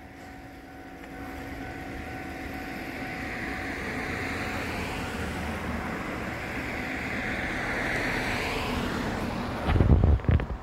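A road vehicle going by: a steady noise of tyres and engine swells for several seconds and fades. Near the end there is a short rumble of wind buffeting the microphone.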